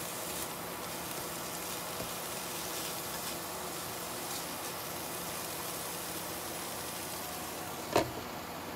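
Sliced red onions sizzling steadily in a nonstick skillet, stirred now and then with a plastic slotted spatula. About eight seconds in, a glass lid is set down on the pan with a sharp clink.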